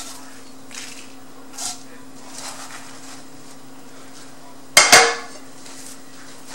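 Faint rustling of a paper towel. About five seconds in come two sharp clattering knocks of kitchenware on a wooden board, the second with a short ring. A steady low hum runs underneath.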